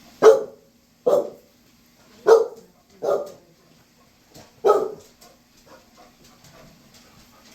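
A dog barking five times in about five seconds, each bark short and separate, then falling quiet.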